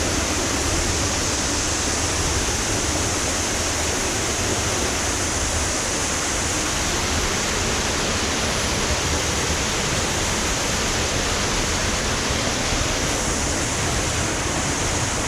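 Steady rush of a waterfall and its stream, a continuous even roar of water.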